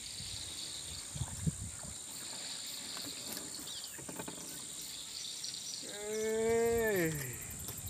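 Steady high buzzing of insects. About six seconds in, a single long call rings out and falls in pitch, lasting just over a second.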